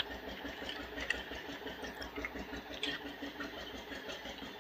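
A few faint computer keyboard keystrokes, irregular single clicks as a short code is typed, the sharpest at the very start, over a steady low room hum.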